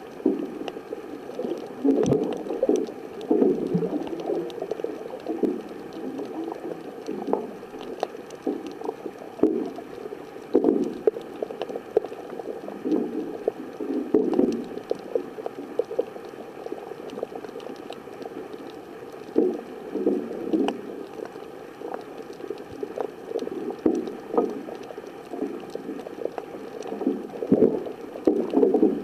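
Underwater water noise picked up by a waterproof compact camera's sealed microphone: muffled gurgling rushes that come and go every second or two, with scattered faint clicks.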